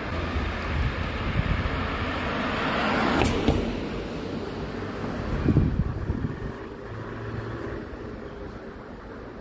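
Street noise with a car passing close by, swelling to its loudest about three seconds in and fading, then a second lower rumble of passing traffic around five and a half seconds.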